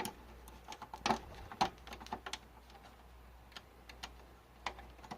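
Scattered light clicks and knocks of plastic connectors and cables being handled and plugged in while a desktop computer's peripherals are connected, the sharpest about a second and a half in and again near the end.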